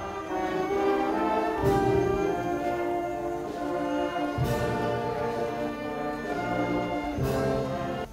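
Brass band playing slow, held chords, with a percussion stroke about every three seconds.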